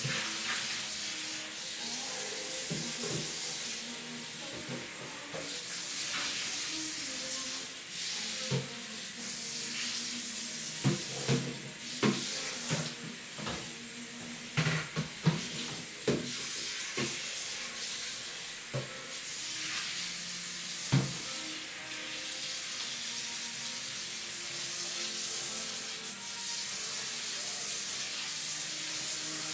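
Water running from a kitchen tap into the sink while dishes are washed, with crockery knocking and clinking against the sink several times midway through.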